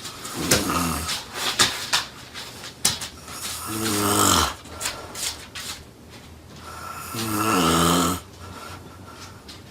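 Loud snoring: three long snores about three and a half seconds apart, each dropping in pitch as it goes, with short clicking snorts between the first two.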